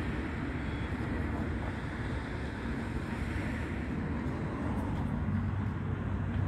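Steady low rumble of wind on the microphone, with a faint low hum beneath it.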